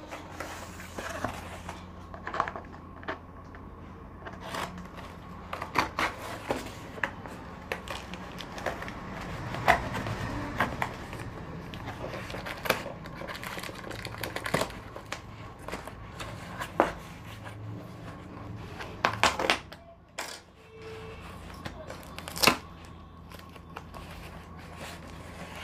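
Hands working open a paper mailer package: irregular crinkling, scraping and tearing of paper and tape, with sharp rips here and there.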